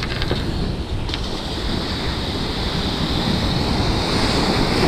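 Sea surf washing around and over a concrete breakwater, the hiss of the wash building toward the end, with wind buffeting the microphone.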